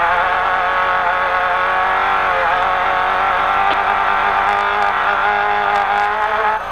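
Off-road race truck engine running hard at high revs, its note wavering slightly with throttle. Near the end it drops briefly, as on a lift or shift, and then picks up again at a different pitch.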